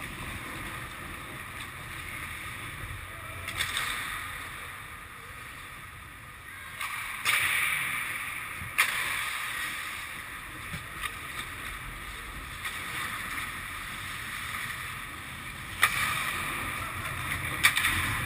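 Ice hockey play: skate blades scraping and carving on the ice, with a few sharp clacks of stick and puck.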